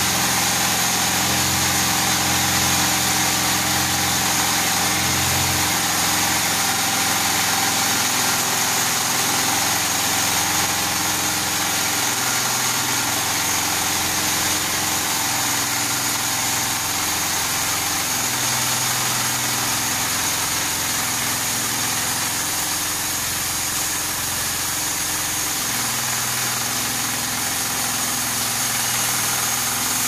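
Homemade band sawmill running: its small single-cylinder air-cooled engine drives the band blade steadily, with a thin high whine over the engine, while the saw head is pushed along and into a squared log.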